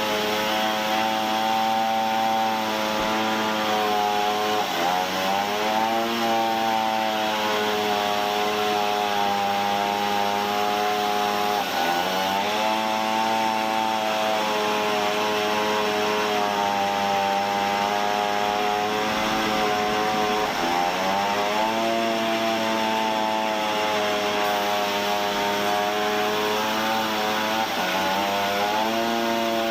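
Sawmill saw machinery running with a steady pitched hum, its pitch sagging briefly and recovering four times.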